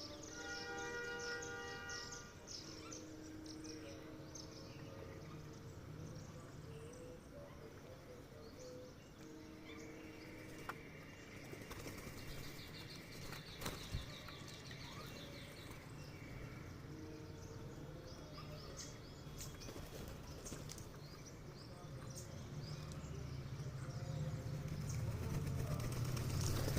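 Birds chirping and calling at irregular intervals, with wings flapping.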